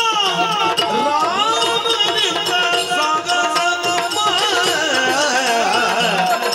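Yakshagana ensemble music: a melodic line that slides up and down in pitch over fast, dense strokes of the chande and maddale drums.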